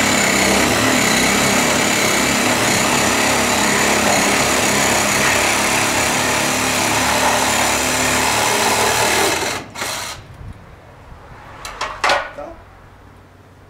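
Cordless drill running steadily as it drives a screw through the verandah roof into old timber, stopping abruptly about nine and a half seconds in. A few short knocks follow, the loudest a sharp one near the end.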